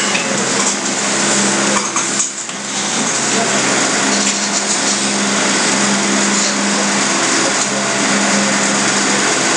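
Steady mechanical hum and hiss with a low held tone, like a small motor or fan running; it dips briefly about two seconds in.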